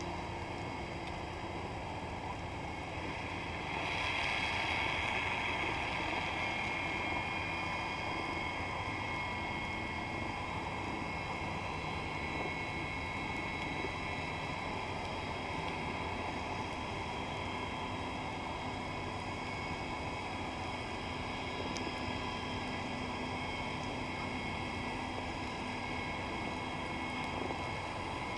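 Underwater ambience picked up by a camera in a waterproof housing: a steady drone with several held mechanical tones. It swells a little about four seconds in.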